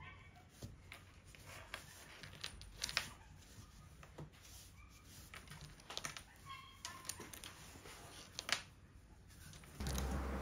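Hands pressing and smoothing a linoleum-faced plywood panel set into the recess of a round wooden tabletop: scattered faint taps and clicks. A steady low hum starts just before the end.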